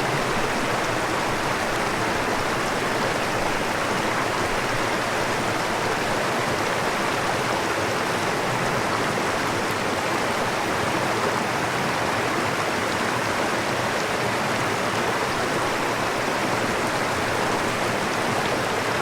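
Steady rushing of a stream or small waterfall, an even, unbroken wash of flowing water.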